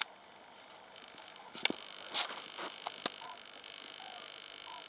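Handling noise on a handheld camcorder: a cluster of sharp clicks and a brief rub between about one and a half and three seconds in. Faint short calls of migrating common cranes sound in the distance, over a steady high hiss.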